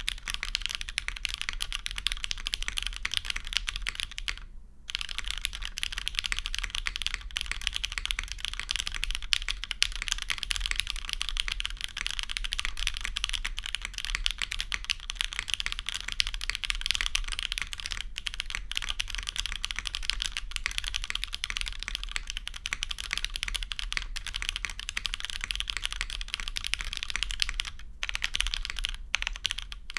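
Fast, continuous typing on a custom mechanical keyboard with lubed, polished Hyperglide Cherry MX Black linear switches and GMK keycaps. The keystrokes run densely and break off briefly about four and a half seconds in and again near the end.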